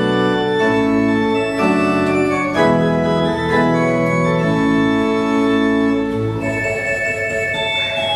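Pipe organ playing sustained chords that change about once a second, with deep bass notes underneath; the bass drops away about three quarters of the way through and the sound thins.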